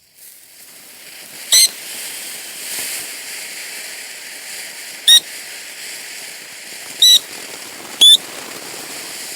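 Ground firework fountain spraying with a steady crackling hiss, broken four times by brief, shrill whistles that are the loudest sounds.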